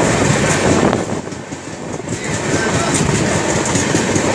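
Passenger train running at speed, heard at an open carriage door: a steady rumble of wheels on track mixed with rushing air, dipping briefly about a second in before coming back up.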